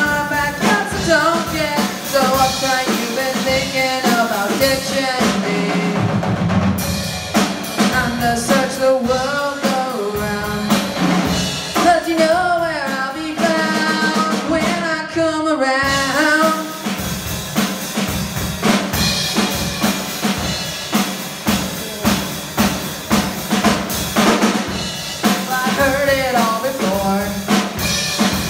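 Small live rock band playing: a drum kit keeping a steady beat, with electric guitar and a lead singer on a microphone.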